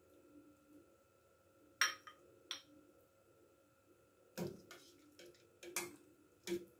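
Metal ladle knocking against a stainless steel cooking pot while scooping stew: two sharp clinks about two seconds in, then a run of several more knocks in the second half.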